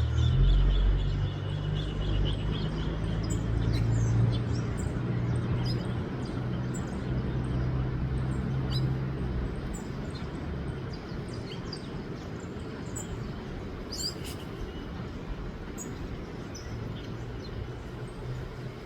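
Small wild birds giving short, high chirps now and then, over a louder steady low hum that eases off about halfway through and comes back faintly near the end.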